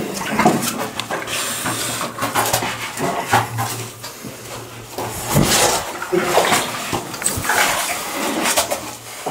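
Rubber-booted footsteps splashing and squelching through shallow water and mud, with clothing and gear scuffing against the walls of a narrow rock passage. Irregular, uneven steps with no steady rhythm.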